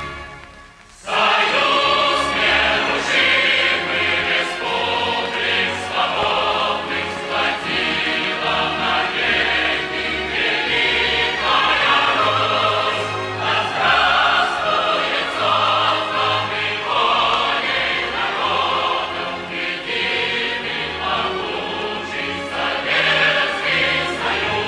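Music: a choir singing with instrumental accompaniment, coming in about a second in.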